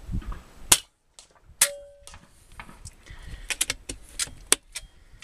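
FX Independence .177 air rifle firing with a sharp crack, then about a second later a second sharp strike with a short metallic ring. A run of small mechanical clicks follows.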